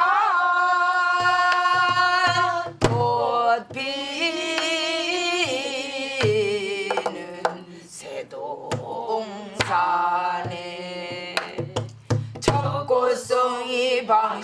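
A woman singing a Korean Namdo folk-style song, holding long notes with a wavering vibrato, accompanied by a sori-buk barrel drum struck with a stick at scattered points.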